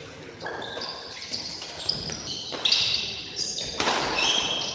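Sports shoes squeaking on the court floor and rackets hitting the shuttlecock during a fast badminton rally. There are many short, high squeaks between sharp knocks, and a louder burst about four seconds in.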